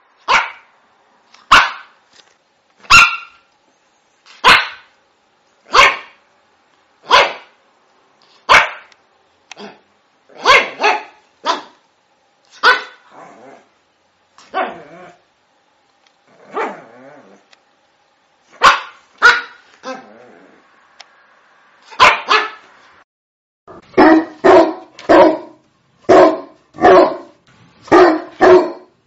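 A dog barking repeatedly, with clean silence between barks. At first there are single barks about every second and a half. Then the barks come irregularly, some in pairs, and near the end there is a quicker run of barks, about two a second.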